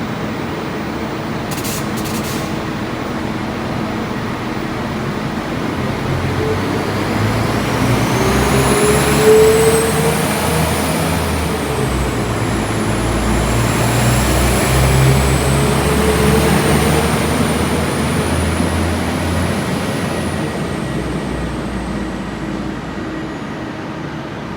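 A train passing through the station. Its low rumble and a high, pitch-sliding whine swell to a peak and then fade away.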